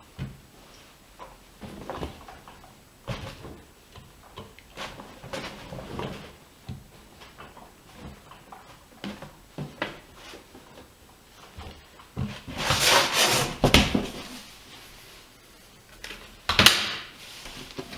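AEG Öko-Lavamat washing machine early in its cycle: irregular knocks and clunks, with a louder rushing swish about thirteen seconds in and a sharp burst near the end.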